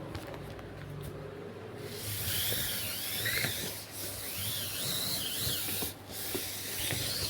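Rubbing friction noise: a hissing scrape that starts about two seconds in, with a wavering high squeak riding over it.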